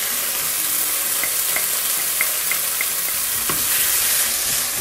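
Chopped onions and tomato paste sizzling in a nonstick pan with a steady hiss and a few faint pops. From about three and a half seconds in, a wooden spatula stirs and scrapes the mixture against the pan.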